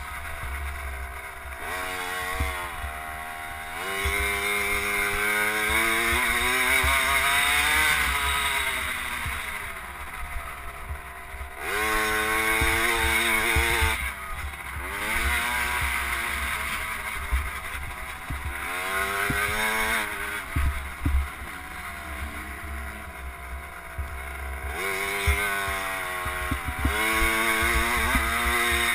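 KTM SX50 mini motocross bike's small two-stroke single-cylinder engine, heard close from the onboard camera, revving up and dropping back again and again as the throttle is opened and closed around the track. Low wind rumble on the microphone underneath.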